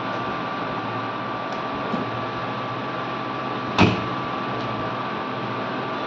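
Steady mechanical hum with a thin whine over it, and a single sharp click or knock just before four seconds in.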